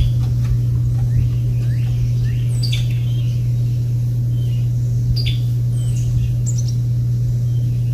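Small birds chirping, with short calls that fall in pitch, heard several times, over a loud, steady low hum.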